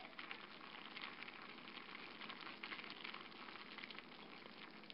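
Pot of mung bean soup at a rolling boil: a faint, steady bubbling with many small pops.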